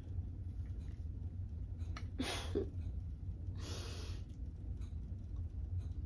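A woman breathing out heavily twice, sighing, about two and four seconds in, over a steady low hum.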